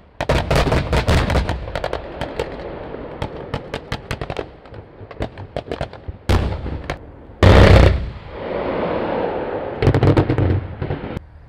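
Live-fire weapons fire and explosions: rapid volleys of shots and impacts, with a dense volley at the start, a single loud blast about seven and a half seconds in followed by a long rolling echo, and another volley near the end.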